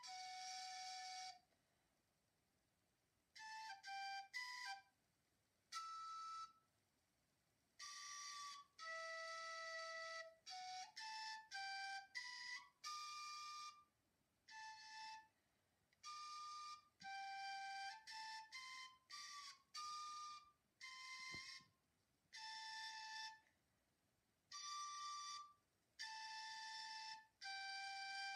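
Outro music: a slow melody of single flute-like notes played one at a time, in short phrases broken by silences.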